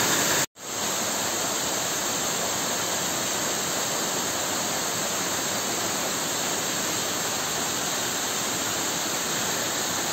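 Waterfall pouring onto rocks: a steady rushing of falling water, broken by a momentary dropout about half a second in.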